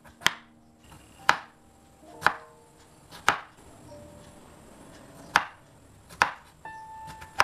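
Chef's knife chopping diced potato on a wooden cutting board: single sharp knocks about once a second, with a pause of about two seconds in the middle.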